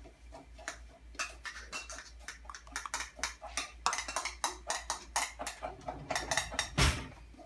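Rapid light clicks and taps of small plastic cups being handled while meltwater is poured into a plastic measuring cap, with one louder knock about seven seconds in.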